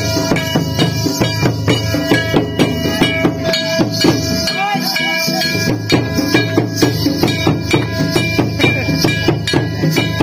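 Santali folk music for a Natwa dance: a fast, even drumbeat with jingling percussion under a held melody line.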